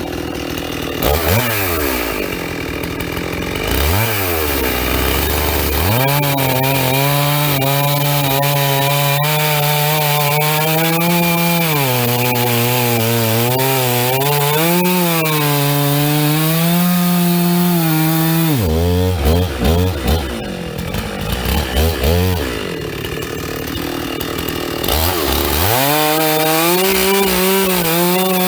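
Two-stroke chainsaw crosscutting a large pine cant: after a couple of quick revs it runs at full throttle through the wood, its pitch sagging under load, drops back to idle about two-thirds through with a few short blips of the throttle, then revs up to cut again near the end.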